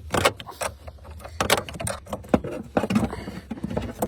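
Irregular clicks, knocks and clatter of tools and plastic and metal car parts being handled, typical of disconnecting the battery and opening the fuse panels on a car.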